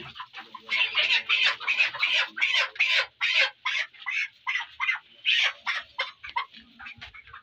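A flock of white broiler chickens clucking, a rapid run of short, loud calls several a second that thins out near the end.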